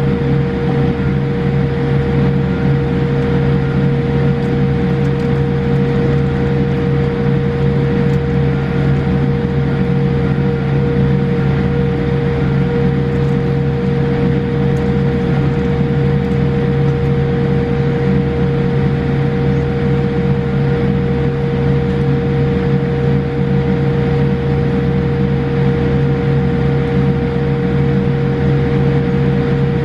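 Boeing 787-8 airliner cabin noise on the ground after landing: a steady low hum and rush with a constant whine held at one pitch, unchanging throughout.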